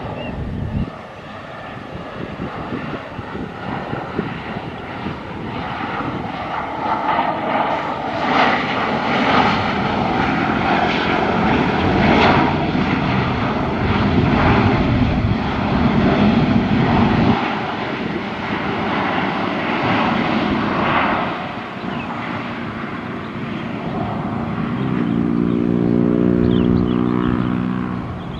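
Boeing 737-500 airliner's CFM56 turbofan engines running, the noise swelling to a peak around the middle and easing off. Near the end a steady pitched hum comes in under it.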